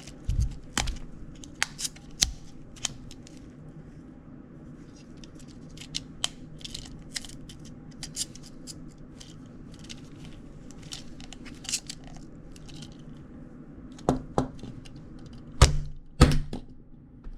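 Small hard-plastic wind-up toy being handled and knocked about as someone tries to break it: scattered sharp clicks and taps, with a few heavier thumps near the start and near the end.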